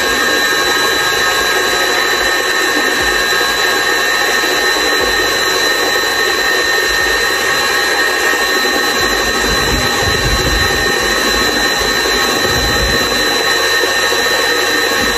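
KitchenAid Artisan stand mixer running steadily, its beater turning through chiffon cake batter in the steel bowl, with a constant high motor whine over the mechanical noise.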